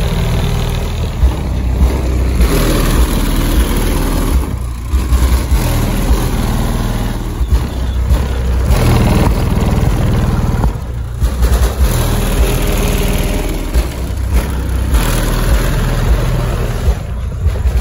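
Loud, deep bass from a car stereo's four 15-inch subwoofers, heard from outside the car.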